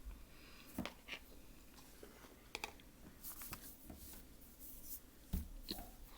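Faint mouth sounds of someone chewing microwaved cornstarch: scattered small clicks and smacks, with a brief hiss in the middle.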